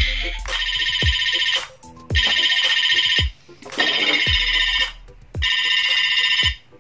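Kyuranger Ryutei Kyurenoh robot toy playing its electronic sound effect through its small speaker: a buzzy, beeping phrase repeated four times, each about a second long, with a low thump between repeats.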